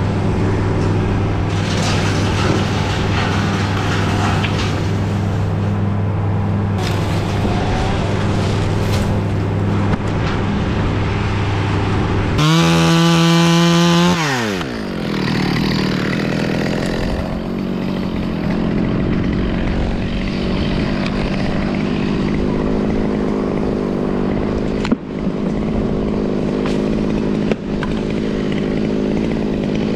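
Top-handle chainsaw revved to full throttle for a couple of seconds about halfway through, its pitch sliding down as it comes off the throttle. A steady engine drone runs underneath.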